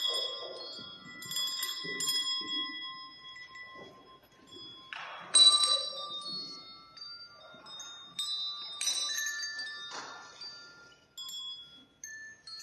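Small bells rung in scattered strokes, each a high, clear ring that fades away slowly. The loudest strike comes about five seconds in.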